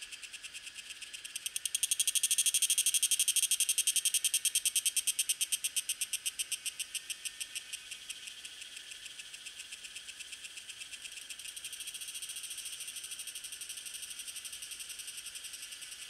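Tanna viridis cicada singing a fast, even pulsing buzz of about ten pulses a second. It is loudest for the first few seconds, then eases off and holds steady, over a faint steady high tone.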